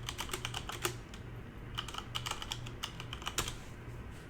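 Typing on a computer keyboard: quick bursts of keystrokes, with a short pause a little after a second in.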